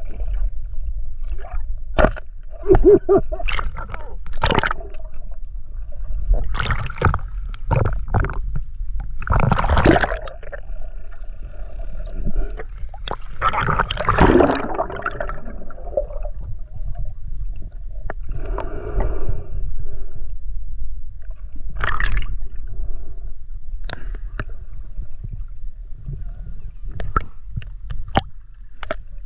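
Water sloshing and gurgling around an underwater camera as it moves below and through the sea surface, over a steady low rumble, with many sudden splashes and knocks.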